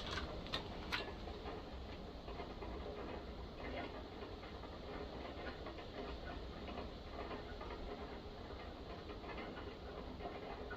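Three quick, sharp clicks in the first second, then faint small ticks and scrapes of hand tools being handled on the saw.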